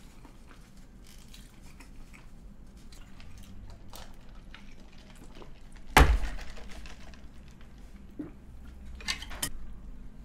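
Quiet chewing and small clicks of handling food and a plate, with one sharp knock about six seconds in as a paper drink cup is handled on the table. A couple of clicks of chopsticks near the end.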